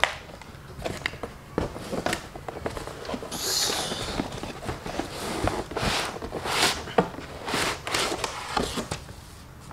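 Box packaging being handled: cardboard and plastic rustling, with scattered light knocks and a brief crinkle about three and a half seconds in.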